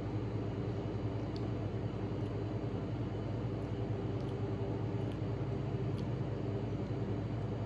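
Steady low mechanical hum with a few faint overtones, with a couple of faint light clicks.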